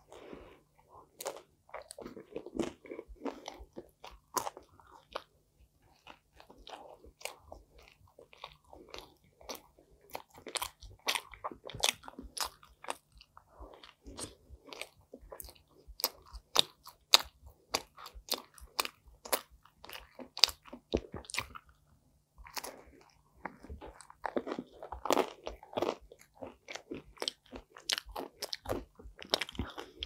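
Pizza being bitten and chewed close to the microphone: crunching and many sharp mouth clicks in quick, irregular succession, with softer chewing in between. A faint steady low hum runs underneath.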